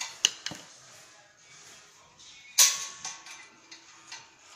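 Stainless-steel parts of a churros machine being handled during disassembly: two sharp clicks near the start, then a louder metallic clank about two and a half seconds in that rings briefly.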